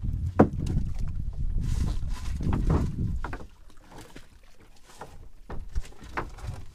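Low wind rumble on the microphone with scattered sharp knocks and splashy noise, dropping much quieter about halfway through, with a few more knocks near the end.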